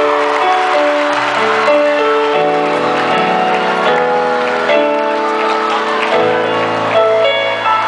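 Live electric keyboard playing slow, sustained chords that change every second or so through an arena sound system, with crowd noise and some applause underneath.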